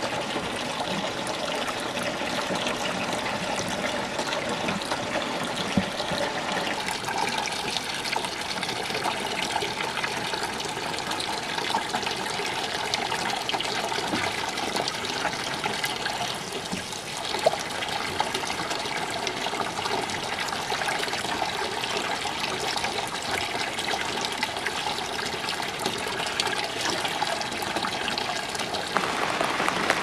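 Water running steadily, an even continuous rush with a single faint knock about halfway through.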